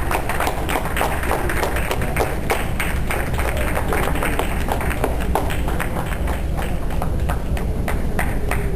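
Audience clapping steadily as dogs are gaited in the ring, dying away near the end.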